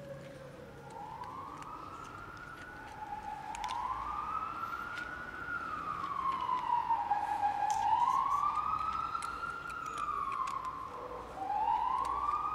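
Emergency vehicle siren wailing. It starts about a second in, rises and falls slowly in pitch roughly every three to four seconds, and grows louder over the first several seconds.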